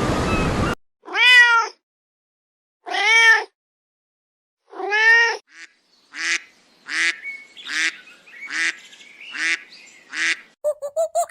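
A cat meowing: three long meows about two seconds apart, then six shorter meows in quicker succession. A wash of surf-like noise cuts off suddenly under a second in.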